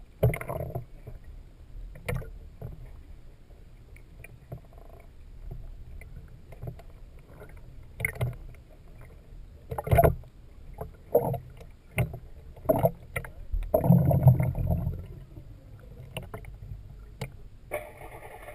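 Muffled water sloshing and splashing around a camera held just under the sea surface, with irregular knocks and a louder surge of water about three-quarters of the way through.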